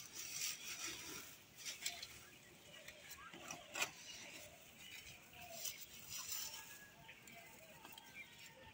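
Faint rustling of leaves and scattered small clicks as someone steps through a patch of bottle gourd vines, with one sharper click about four seconds in. A few faint short animal calls come and go.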